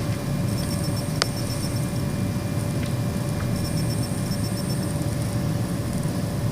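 Humidifier running with a steady low hum, and a single sharp click about a second in.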